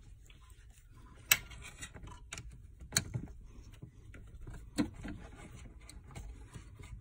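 Small hard parts being handled: a few sharp clicks and knocks over quiet room sound, the loudest just over a second in, with others near three seconds and near five seconds in.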